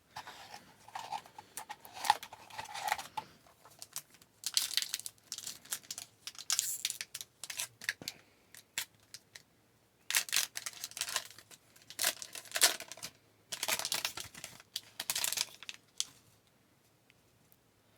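A pack of hockey trading cards being opened and handled: the wrapper crinkles and tears in short, irregular crackly bursts, and the cards slide and shuffle. It stops about two seconds before the end.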